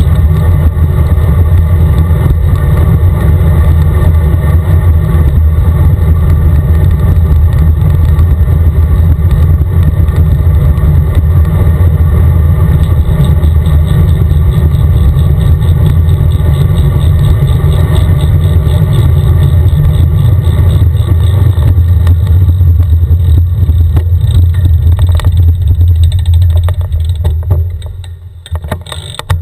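Loud low wind rumble buffeting a camera microphone on a moving bicycle, mixed with highway traffic noise. It drops away briefly near the end before returning.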